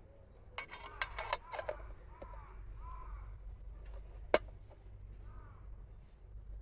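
A quick run of sharp clinks and knocks, then a single loud click about four seconds in, like utensils or cans handled at a camp table; three short arching calls, like a crow's caws, come in between over a low steady rumble.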